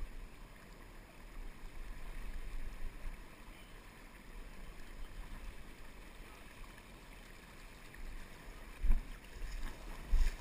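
Steady low rumble of wind and river water on a GoPro's microphone, with a loud thump about nine seconds in and a few smaller knocks after it.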